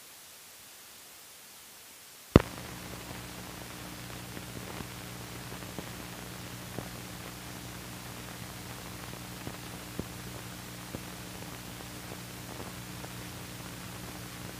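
Old film soundtrack noise: faint hiss, then a sharp click about two seconds in. After the click comes a steady low hum with hiss and scattered faint crackles and pops.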